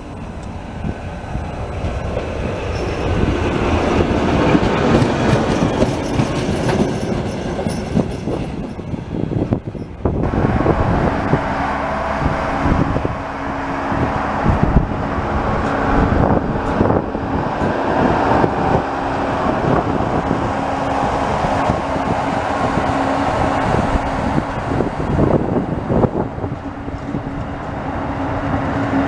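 Trains passing through a station. First an electric locomotive comes along the tracks, then a RegioJet passenger train rolls past close by, its wheels knocking and rumbling on the rails. From about ten seconds in a steady low hum runs under the passing coaches.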